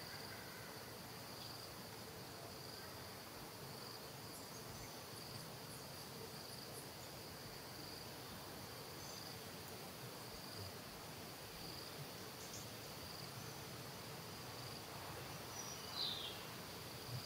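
Insects chirring in a steady high-pitched drone, with one brief high squeak near the end.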